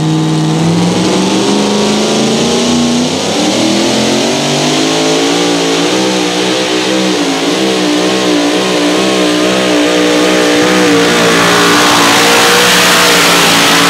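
Supercharged Super Modified two-wheel-drive pulling truck's engine at full throttle pulling the sled. It revs up over the first few seconds, then holds high with its pitch wavering up and down.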